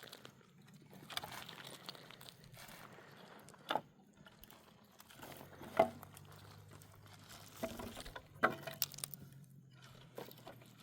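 Irregular handling noises: light knocks and rustling with a few sharper clacks, the loudest near the middle.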